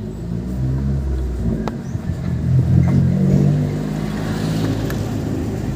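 Motor vehicle engine running, with a low steady hum whose pitch rises and falls and grows louder around the middle.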